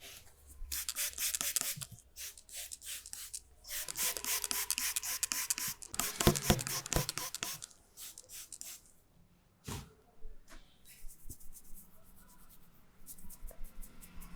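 Hands rubbing and scratching in massage strokes, in bursts of quick strokes with short pauses. The strokes are loudest and sharpest about six seconds in and grow quieter and sparser after about ten seconds.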